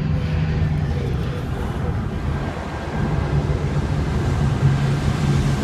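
A vehicle engine running with a steady low hum over broad road or wind noise; the hum eases briefly about halfway through and then comes back.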